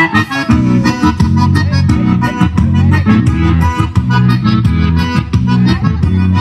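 Gaúcho folk song playing loud over a sound system: an instrumental stretch led by accordion over guitar, with a steady beat, between sung verses.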